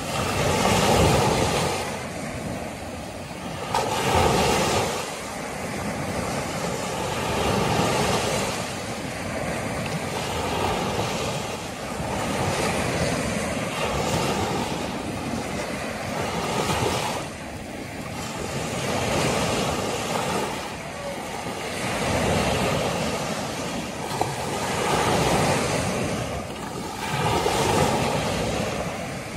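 Small surf breaking and washing up a sandy beach. The rushing noise swells and falls back every few seconds as each wave comes in.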